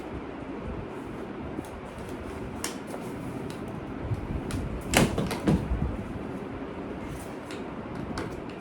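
Packing padding being pulled off a new baby stroller: handling noise with scattered sharp clicks and a couple of louder knocks about five seconds in, over a steady background hiss.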